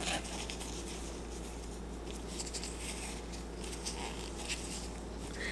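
Faint rustling and light handling of a cloth bath-tea bag's drawstring being cinched closed, over a low steady hum.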